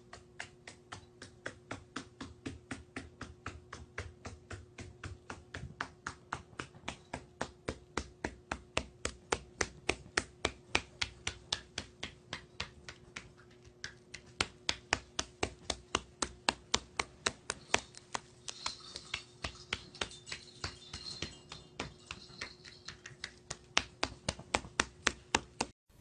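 Sharp, evenly spaced taps, about three a second, going on without a break over a faint steady hum.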